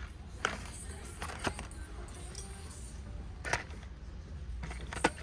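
Boxed and pouched beauty packages being handled on metal peg hooks: four sharp clicks and rattles, about a second or two apart, over a low steady hum.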